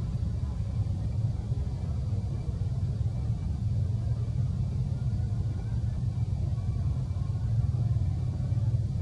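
A steady low rumble of outdoor background noise, even and unbroken throughout.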